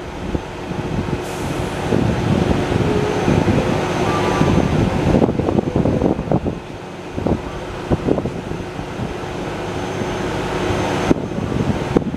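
Work-truck engines running steadily, with wind buffeting the microphone and two sharp knocks near the end.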